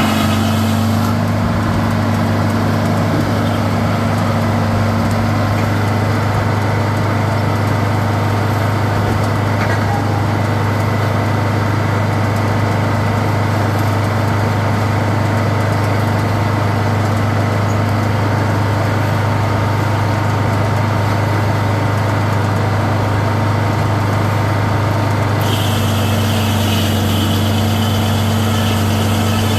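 Sawmill running steadily as it saws a crosstie, a constant low engine drone. About 25 seconds in, a higher hiss joins.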